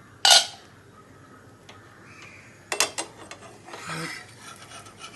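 Cookware clattering on a non-stick pan: a short loud clatter just after the start, then a quick run of sharp knocks about halfway through, with fainter scraping between.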